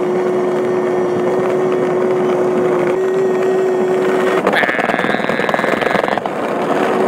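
Skateboard wheels rolling over asphalt: a steady rumble with a held hum, with wind buffeting the microphone. About four and a half seconds in, the hum gives way to a higher, rattling buzz for nearly two seconds before the rumble returns.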